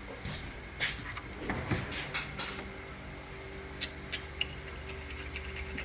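Scattered small clicks and taps of hand tools and parts being handled while a paint sprayer pump is taken apart, over a faint steady hum.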